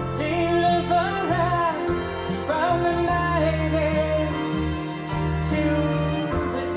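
A slow song played from a vinyl record through a DS Audio E3 optical cartridge: a woman's voice sings long, gliding notes over sustained instrumental accompaniment with a steady low bass line.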